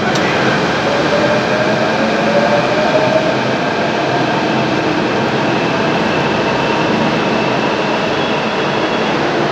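Delhi Metro train pulling out of an elevated station: a steady rumble of wheels on rail with an electric motor whine that rises in pitch over the first few seconds, then holds steady.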